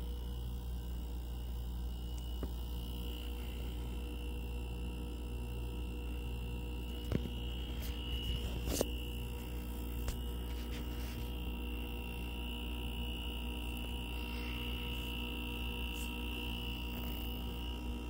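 2021 Frigidaire window heat pump humming steadily in a defrost cycle, its outdoor coil frosted over, with a steady high tone above the hum. A few short clicks come about seven to nine seconds in.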